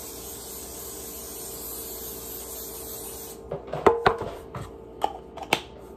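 Aerosol cooking spray hissing steadily onto a metal baking pan to grease it, cutting off about three and a half seconds in. A few sharp clicks and knocks follow as the can and pan are handled.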